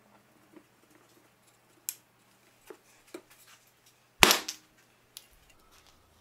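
A wooden mallet strikes a glued wood block clamped overhanging a workbench. One sharp, loud crack about four seconds in knocks the piece off; the wood splits rather than the Titebond III glue joint. A few faint clicks come before it.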